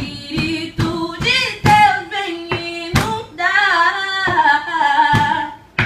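A woman singing solo, long sliding melodic runs with no clear words, with a few sharp knocks under the voice.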